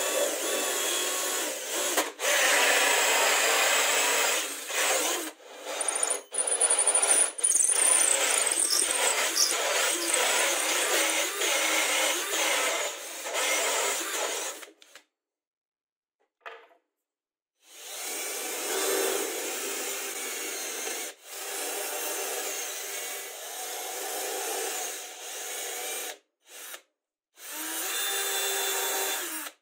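A cordless drill runs a hole saw through plywood in a long cut, with several brief stops. After a pause of about three seconds, the drill bores holes into laminated chipboard with a twist bit in short runs.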